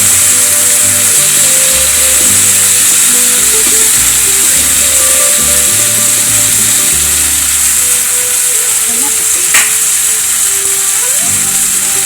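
Onions, ginger-garlic paste and tomatoes sizzling in hot oil in a pan as they are stirred, with one sharp knock about ten seconds in. Background music plays underneath.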